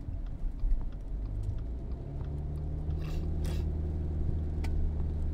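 Car cabin on a wet road: low engine and tyre drone that settles into a steady hum about two seconds in as the car gets up to highway speed. Light ticks of rain hit the windshield, with two short swishes near the middle.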